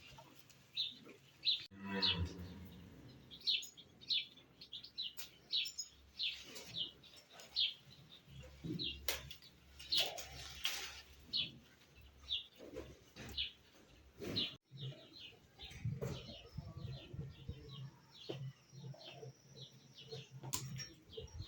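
Birds chirping, many short high chirps one after another, with a few sharp knocks among them.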